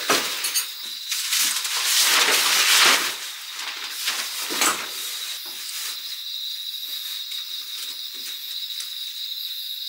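Kovea pop-up mosquito net's nylon mesh and frame rustling and swishing as it is shaken out and sprung open, loudest about two to three seconds in and settling by about five seconds. A steady chirring of crickets runs under it.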